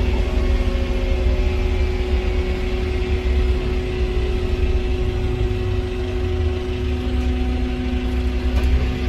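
Volvo B5LH hybrid bus driving along, heard from inside the passenger cabin: a steady low rumble from the drivetrain and road, with a steady humming tone over it.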